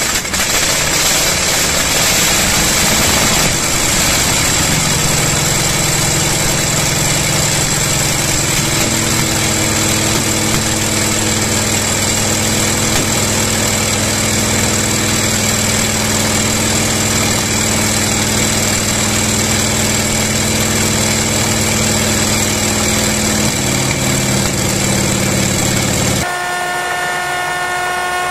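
Antonov An-2's Shvetsov ASh-62 nine-cylinder radial engine on a test stand, running steadily just after a cold start. Its speed shifts at about five and again at about nine seconds in. Near the end the sound cuts abruptly to a different, steadier hum with several held tones.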